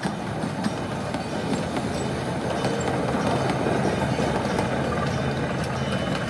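Open passenger cars of a miniature park train rolling past over the rails, a steady rumble that swells a little midway and eases as the last car goes by.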